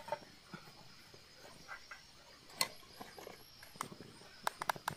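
Sparse light clicks and taps of a spatula and glass against a small non-stick camping pan on a portable butane stove, one sharper tap about halfway through and a quick run of taps near the end.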